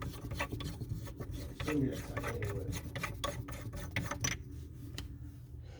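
Hammer tapping and scraping on the edge of a faucet's mounting nut to knock it loose: a rapid, irregular run of light metallic taps that thins out about four and a half seconds in.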